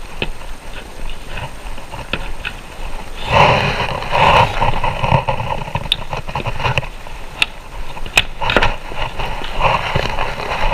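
Flat-pack cabinet panels being handled and fitted together: scraping and rustling, then several sharp knocks of board against board.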